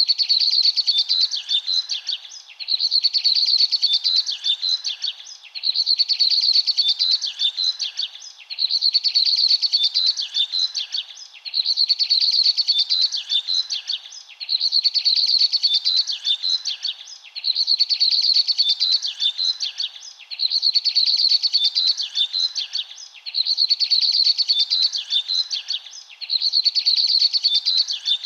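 Birds chirping in dense, high-pitched bursts of about two seconds, separated by short lulls. The pattern repeats almost identically about every three seconds, like a looped birdsong recording.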